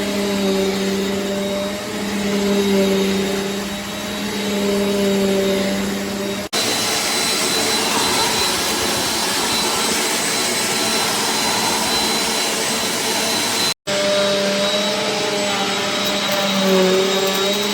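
Eureka AirSpeed bagless upright vacuum cleaner running, a steady motor hum with a high whine whose pitch dips now and then. The sound breaks off abruptly twice and resumes, the low hum dropping out for several seconds in the middle stretch.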